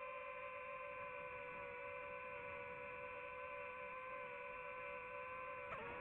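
DJI FPV drone's propellers and motors whining steadily in flight, a hum of several stacked tones; near the end the pitch dips briefly and comes back, as the throttle changes.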